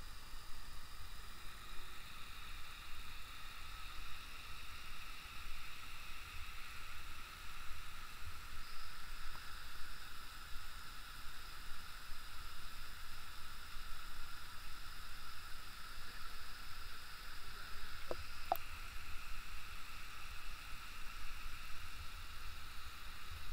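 Steady rushing noise of a waterfall, with an even high-pitched drone on top. There are two faint clicks about three-quarters of the way through.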